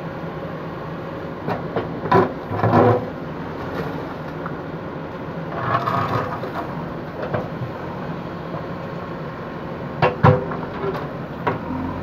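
JCB backhoe loader's diesel engine running steadily, with the rear bucket crunching and knocking against brick rubble and stones a few times: about two to three seconds in, around six seconds, and twice near ten seconds.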